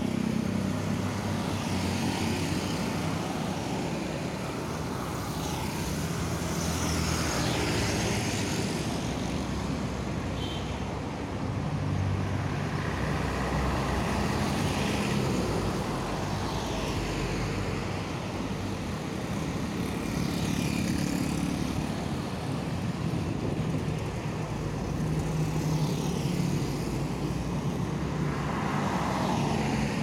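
Road traffic on a highway: cars and trucks going by one after another, each swelling and fading as it passes, over a steady low engine rumble.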